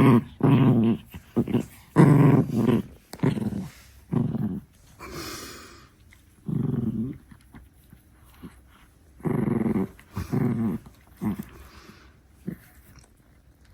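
Six-month-old chihuahua puppy growling in short repeated bursts with pauses between, the bursts thinning out near the end. It is resource-guarding her favourite stick.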